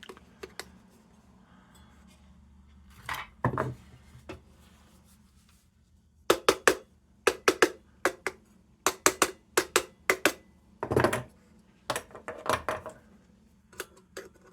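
Sheet-metal lantern parts clinking and knocking as they are handled and fitted together: a few faint taps, then a quick run of sharp metallic clicks and knocks, the loudest about eleven seconds in.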